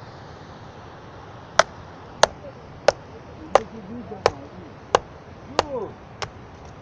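A tool striking timber eight times in a steady rhythm, about three blows every two seconds, each blow sharp and clean, while a stone-walled hut is roofed with wooden poles.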